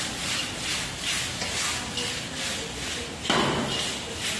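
Stir-fry chicken being tossed in a wok over a gas burner: rhythmic scraping and swishing as the wok is shaken about twice a second, with one louder clatter a little past three seconds in.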